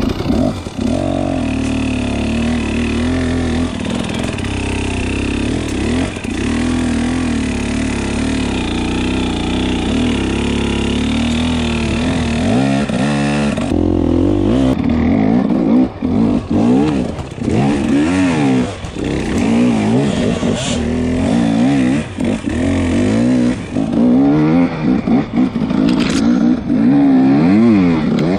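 Two-stroke enduro dirt bike engine, heard from the rider's helmet, revving up and down constantly as the throttle is worked over rough trail. The sound cuts abruptly to another stretch of riding about halfway through.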